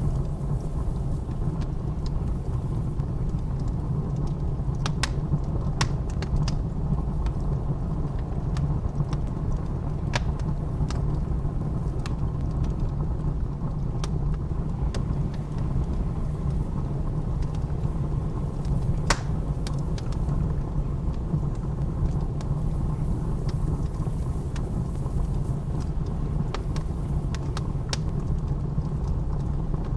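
Steady low rumble of blizzard wind with a wood fire crackling over it: scattered sharp pops and snaps, the loudest about nineteen seconds in.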